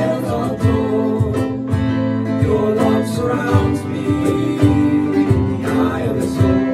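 Live worship music led by strummed acoustic guitar, playing on with a steady beat between sung lines.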